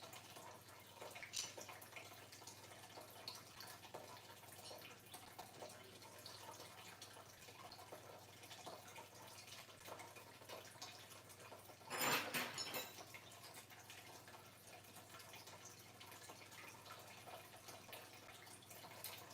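Quiet handling of desk hardware: sparse faint clicks and taps, with one louder rustling scrape lasting about a second, about twelve seconds in.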